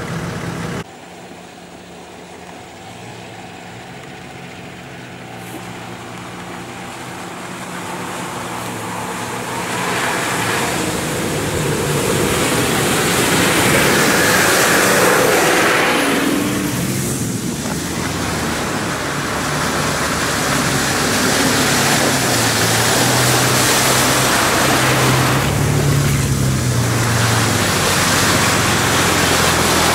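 Off-road 4x4s driving through deep mud and water: engines running under load with water and mud splashing from the tyres. The sound builds as a Nissan Patrol passes close around the middle, and swells again as a second vehicle comes near toward the end.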